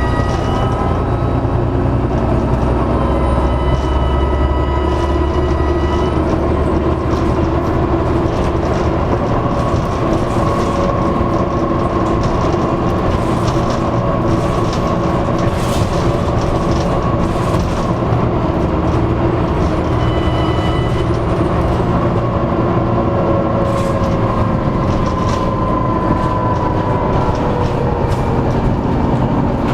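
Dennis Trident double-decker bus's diesel engine running under way, with a high turbocharger whine drifting up and down in pitch over the engine noise, and occasional rattles.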